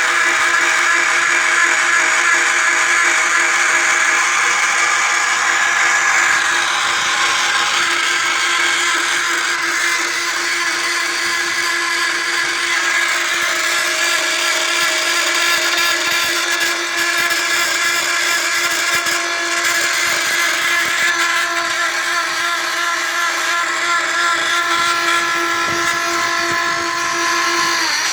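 Electric motor of a homemade drill press running steadily with a constant whine. Near the end its tone drops away.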